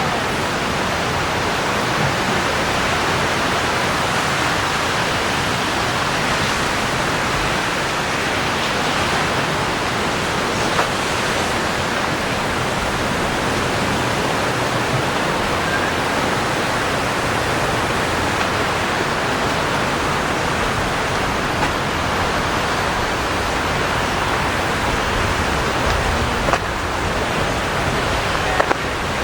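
Steady, even rushing wash of surf on a sandy beach, with a few faint clicks.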